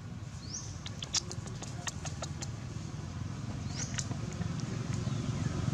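A low engine hum from a passing vehicle, slowly growing louder, with scattered light clicks and crackles over it and two short high rising chirps, one about half a second in and one near four seconds.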